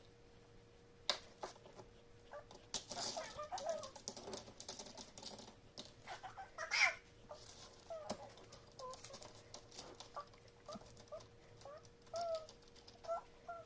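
Faint scratching and tapping of drawing on paper, with short chirps from birds in the background.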